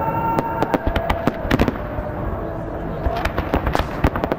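Fireworks display: aerial shells bursting in rapid, irregular bangs and crackles, with a few held tones underneath in the first couple of seconds.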